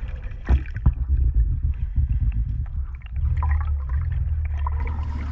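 Water sloshing and lapping against the yacht's stern and swim platform over a low rumble, with a couple of sharp knocks about half a second and a second in.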